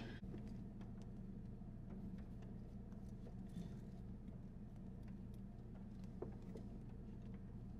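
Low steady hum inside a car's cabin, with a few faint clicks and rustles of someone moving about and reaching over the seats.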